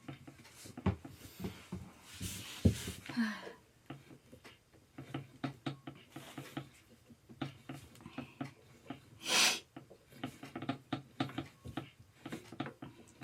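Screws being turned in by hand during gaming chair assembly: a run of small clicks and taps from the tool and hardware, with a brief rushing noise about nine seconds in.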